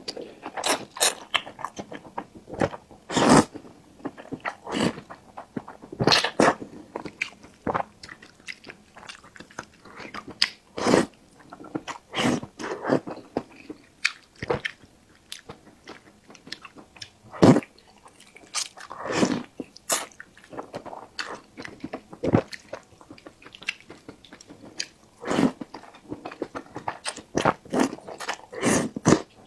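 Close-miked eating sounds: a person chewing and biting food, with irregular short sharp mouth sounds, a few of them much louder than the rest.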